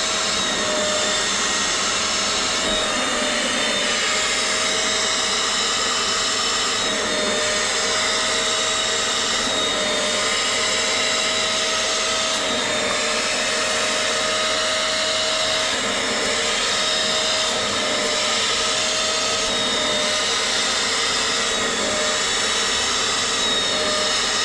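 Wet vacuum extractor motor running steadily, sucking soapy, dirty water out of an Alcantara car seat. It makes a constant whine with a slightly wavering tone.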